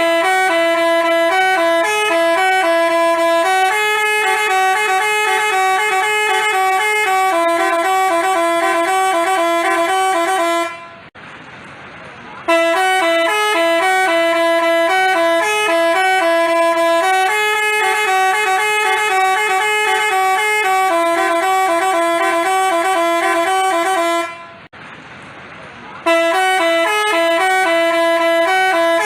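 Basuri multi-tone telolet bus horn playing a tune of quick stepping notes. The melody breaks off twice for about a second and a half and starts over.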